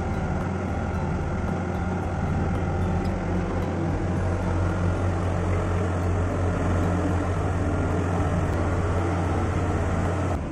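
Ship's engine-room ventilation fans and machinery running: a steady low hum over a rushing air noise.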